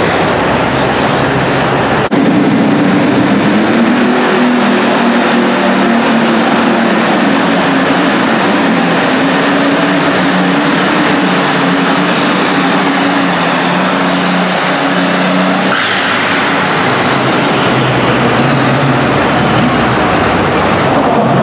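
Super stock pulling tractor engine running at full power and high, steady revs while pulling the sled. About two seconds in and again near the end, the sound cuts to another tractor's engine running at the starting line.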